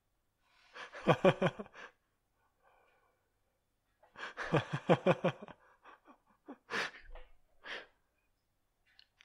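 A person's voice in two short, breathy, pulsing bursts, about a second in and again about four seconds in, followed by a few scattered short clicks and noises.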